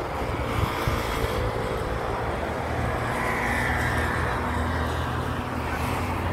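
Steady low rumble of road traffic passing along a seafront street.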